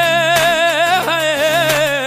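Punjabi pop song playing: a long held vocal note with a wavering vibrato over the backing music.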